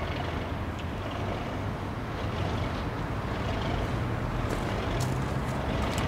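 Class 37 diesel locomotive approaching under load, its English Electric V12 engine rumbling steadily and slowly growing louder, while it hauls a failed Class 47. A few faint clicks come near the end.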